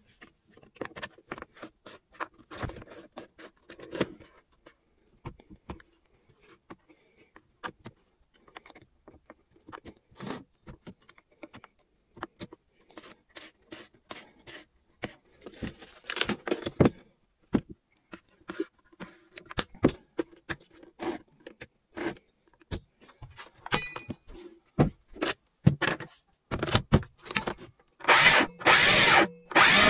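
Stihl MSA 220 C battery chainsaw being put back together: plastic clicks, knocks and scraping as the sprocket cover is fitted and its bar-clamping knob is turned. Near the end the electric motor spins the chain in several short bursts.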